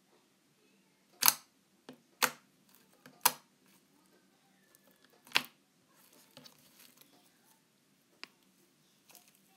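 Sharp clicks and pops from hands squeezing and folding a soft foam bread-shaped squishy. There are four loud ones about a second apart at first, the last a little later, then a few faint ticks and soft rustling.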